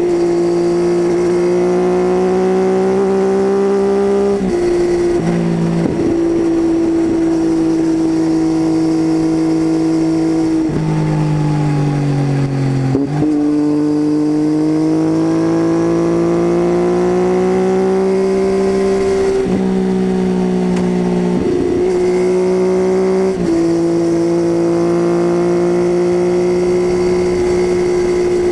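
Triumph Tiger 800's three-cylinder engine through an unbaffled titanium Leo Vince exhaust, heard onboard with no wind noise: a steady drone whose pitch creeps up as the bike pulls, broken by several brief dips at gear changes. Near the middle the pitch falls slowly for a couple of seconds, then jumps back up.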